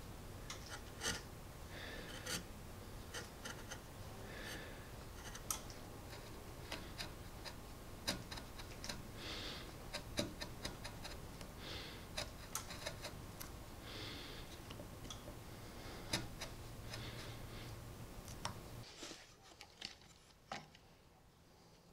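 A hand chisel paring cross-grain shavings from a dovetail socket in a hardwood block: short scraping slices and small clicks at an irregular pace. Near the end the background drops and a few light knocks follow.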